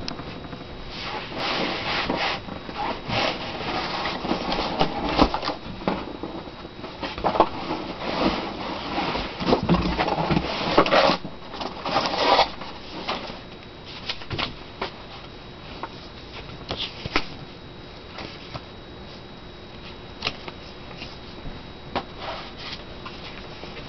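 Cardboard box being opened and handled: flaps pulled open and cardboard packing rustling and scraping, thinning out after about twelve seconds to scattered light taps and knocks.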